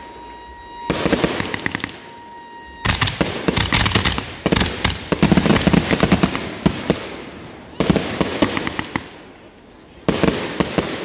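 A 100-shot 1-inch firework cake firing rapid volleys of small aerial shots that burst with crackle. The shots come in four waves: a short one about a second in, a long, loud stretch in the middle, then two shorter ones near the end, with brief lulls between.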